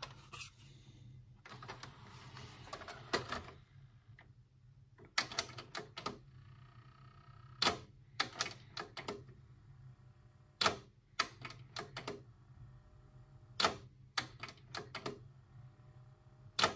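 Philips DCC 600 digital compact cassette deck loading and trying to read a tape: a whir for about two seconds as the cassette goes in, then a series of irregular mechanical clicks and clunks with a brief motor whir as the transport tries to play. The deck never plays the tape, a fault the owner guesses is mechanical.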